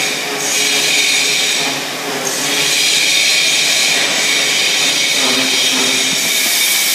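Offline rotating gusseting machine running steadily: a continuous mechanical whir and hiss with a faint high whine, dipping briefly about two seconds in.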